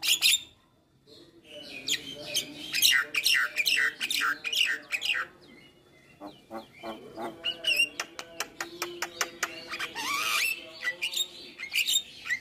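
Javan myna singing a varied, chattering song. About a second in comes a quick run of sharp falling whistles, then a rapid series of clicks, then a rising whistle near the end.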